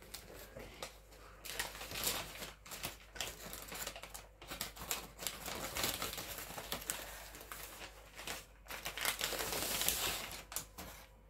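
Brown paper bag crinkling and rustling as it is handled and opened, an irregular run of crackles, loudest a little before the end.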